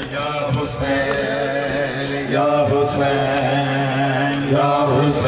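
A crowd of men chanting together in a drawn-out, rising-and-falling mourning refrain, with a few sharp knocks.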